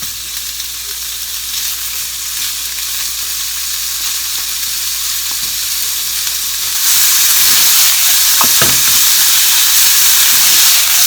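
Thinly sliced beef belly sizzling in hot vegetable oil in a frying pan, a steady hiss that grows louder about seven seconds in, with a few short scrapes soon after.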